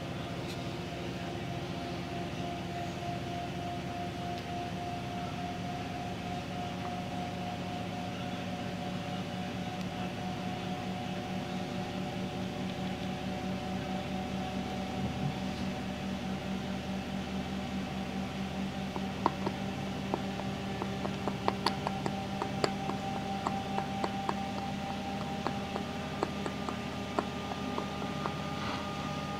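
A steady hum made of several held tones, one of them drifting slowly upward in pitch. In the last third, a scattered run of light clicks and taps.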